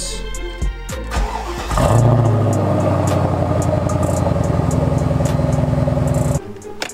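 Cold start of a Mercedes car engine: it fires about two seconds in with a brief flare in level, then settles into a steady idle, which stops abruptly near the end.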